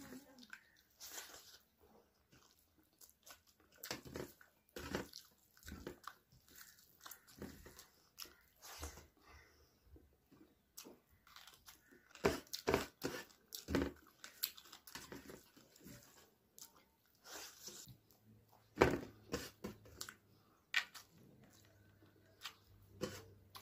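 Close-miked chewing and crunching of a meal of rice, meat, fried potatoes and radish pickle, with irregular wet mouth clicks and smacks, picked up by a clip-on microphone on the eater's chest.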